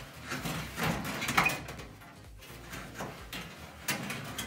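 Door of an old steel Sears Craftsman tool chest being opened and shut on its repaired hinge: a series of clicks and knocks, the loudest about a second and a half in.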